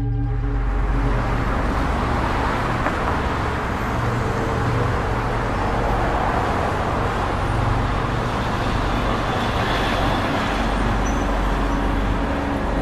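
Steady traffic noise, an even roar without distinct events, with a low steady hum underneath.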